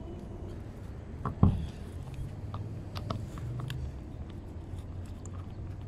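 Handling noise of a windsurf footstrap being fitted onto an inflatable board's pins and screw insert: small clicks and rubbing, with one dull thump about a second and a half in, over a low steady background rumble.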